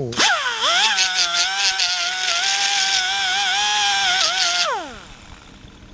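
Electric angle grinder switched on, its whine rising quickly, then running steadily with a harsh grinding hiss as the disc cuts a fourth sawtooth notch into a small metal sleeve. Its pitch wavers slightly under load. Near the end it is switched off and winds down with a falling whine.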